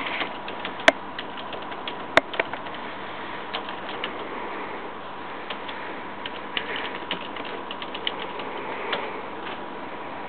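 Computer keyboard typing: quick, irregular key clicks over a steady hiss, with two sharper, louder clicks about a second and two seconds in.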